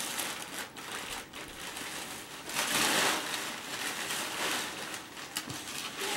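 Crinkling and rustling of white gift wrapping and a bag being rummaged through and pulled about, with scattered small clicks; loudest around three seconds in.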